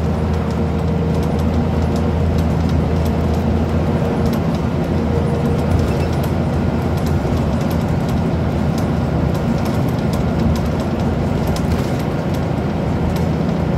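Scania CN94UB Omnicity single-deck bus heard from inside the passenger saloon while driving. Its nine-litre five-cylinder diesel runs steadily under road noise, with frequent small rattles and clicks from the body and fittings.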